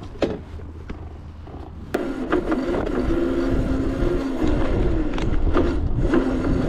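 Razor RSF650 electric dirt bike's motor whining as it pulls away on its slowest speed setting, the pitch stepping up and down as the throttle is tapped, over tyre and wind rumble. The motor starts about two seconds in.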